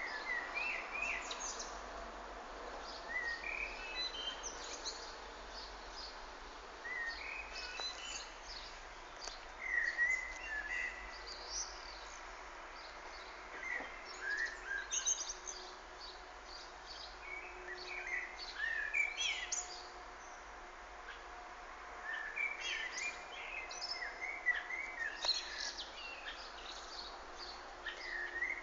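Several small birds chirping and singing in short, overlapping calls that come in clusters, over a steady background hiss.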